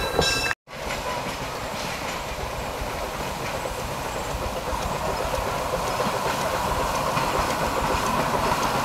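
A 0-4-0 steam locomotive on 42-inch-gauge track running past with its passenger cars, a steady noise that grows a little louder near the end. The sound cuts out for a moment just under a second in.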